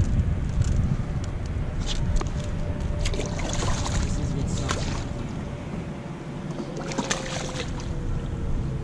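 A fluke on a rope stringer splashing as it is dropped into the water off the dock, over a steady rumble of wind on the microphone with scattered knocks and scrapes of the rope and railing being handled. A faint steady hum runs underneath, sliding slightly lower near the end.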